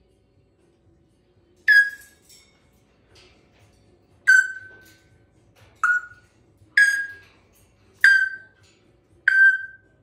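A parrot giving six loud, short whistled calls, one every one to two seconds, each a single clear note that fades quickly.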